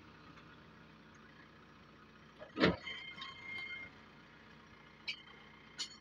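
JCB 3DX backhoe loader's diesel engine idling steadily, with one loud thump about two and a half seconds in, followed by a brief high squeal, and two sharp clicks near the end.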